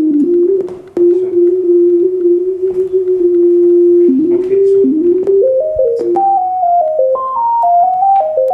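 Casio XW-G1 synthesizer playing a single-note melody line. One note is held for about three seconds, then a phrase of short notes climbs steadily higher.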